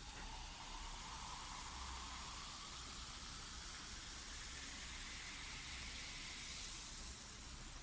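Faint steady hiss, with a faint tone that slowly rises in pitch.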